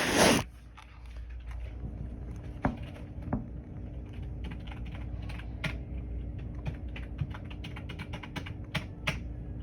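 Typing on a computer keyboard: irregular clicking keystrokes over a steady low hum, after a brief loud rustle right at the start.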